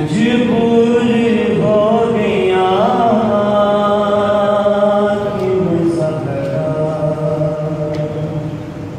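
Unaccompanied male voice chanting a Punjabi noha, a Muharram lament, in long held notes with a wavering ornament about two to three seconds in.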